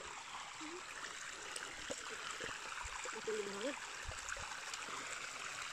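Shallow creek water running steadily over a flat rock slab. Faint voices come in briefly around the middle.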